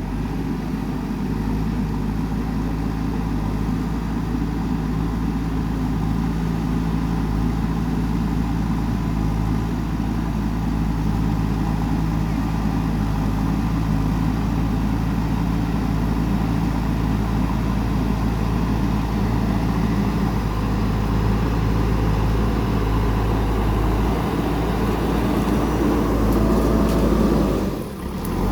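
JCB 3DX backhoe loader's diesel engine running steadily under work, with a brief drop in level near the end.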